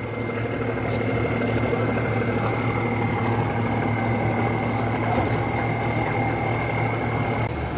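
Trawler's inboard diesel engine idling steadily, a low even hum with a thin steady whine above it.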